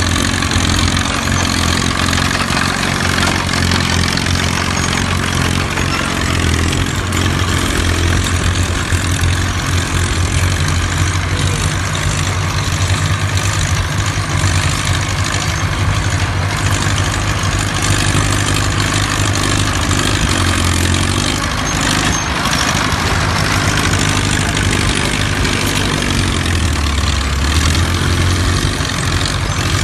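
Engines of vintage OM crawler tractors running steadily while plowing, a continuous low drone with a deeper note showing briefly near the end.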